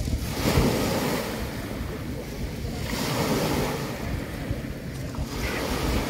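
Black Sea waves washing onto the shore, swelling and falling back about every two to three seconds, with wind buffeting the microphone.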